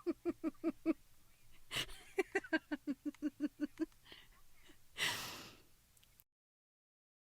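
A woman laughing: two runs of quick, rhythmic pulses, about six a second, the first short and the second longer, each followed by a gasping in-breath. The sound cuts off to silence about six seconds in.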